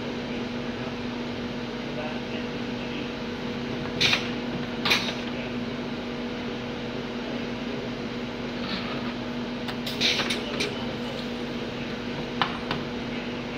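Bottle filling machine and conveyor running with a steady hum, broken by a few sharp knocks and clatters as empty plastic bottles are lifted on and off the filler platform.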